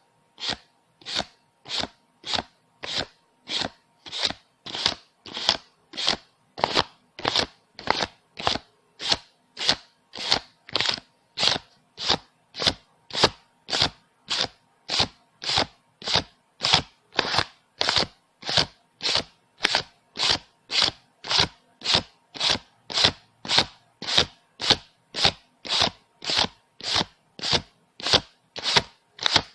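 Paper banknotes being counted one by one: a crisp flick or swish of paper for each bill, about two a second in a steady, even rhythm.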